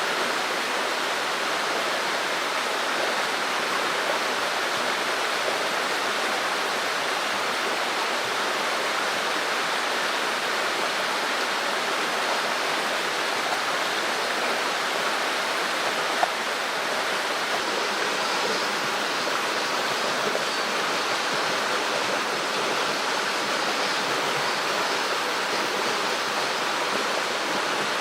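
Mountain stream water rushing steadily over rocks, with one faint click about sixteen seconds in.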